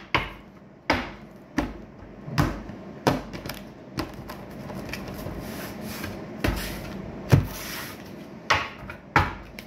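Tarot cards being laid out on a wooden table: a string of sharp taps, roughly one a second, as cards are set down, with a longer gap in the middle filled by soft rustling of the cards.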